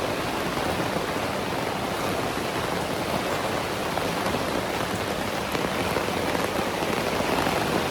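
Heavy rain pouring down in a thunderstorm downpour, a steady dense hiss.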